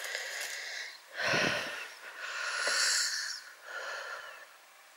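A person breathing heavily close to the microphone: four slow, airy breaths, one after another.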